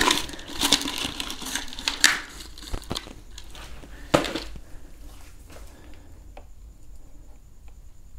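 Hands handling a plastic cable tie and small parts: a few sharp clicks and rustles over the first four seconds or so, then faint scattered ticks.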